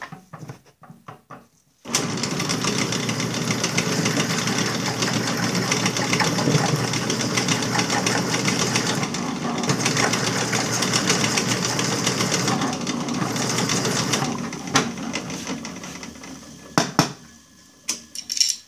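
Drill press switched on about two seconds in, running steadily while a single-flute chamfer cutter cuts into the bolt holes of a metal mower clutch disc, then winding down near the end, followed by a few sharp clicks.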